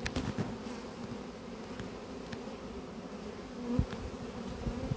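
Honeybee swarm buzzing steadily, a dense hum of many wings, with bees at the hive box entrance fanning to call the rest of the swarm in. A couple of soft low thumps, the clearest nearly four seconds in.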